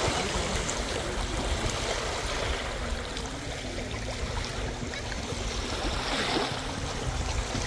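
Small lake waves washing and lapping onto a pebble shore in a steady wash of water noise, with wind rumbling on the microphone.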